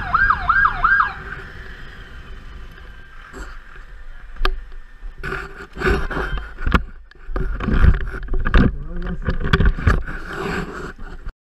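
Emergency motorcycle siren in a fast rising-and-falling yelp, about two and a half sweeps a second, switching off about a second in. Low rumble follows, then irregular rustling, bumps and wind buffeting on the microphone from about five seconds in.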